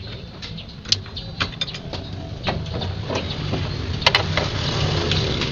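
Scattered metallic clicks and knocks of tool work on the truck's body, loudest in a quick cluster about four seconds in, over a steady low hum.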